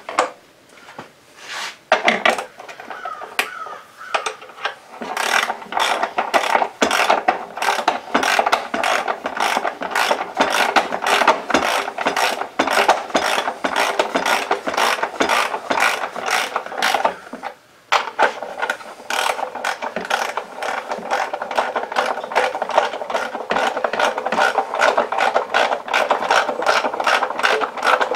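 Hand socket ratchet clicking in rapid, even strokes as a fastener is turned. A few separate knocks come first, and there is a brief pause about two-thirds of the way through.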